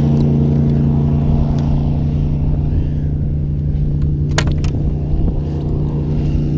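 A boat motor running steadily with an even low hum, and two short knocks about four and a half seconds in.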